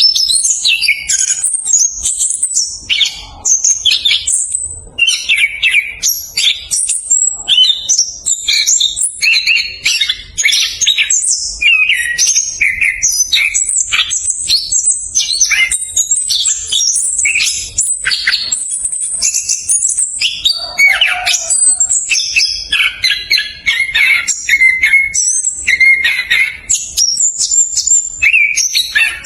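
Orange-headed thrush singing a fast, continuous rolling song: rapid, varied, tightly packed high notes with hardly a pause.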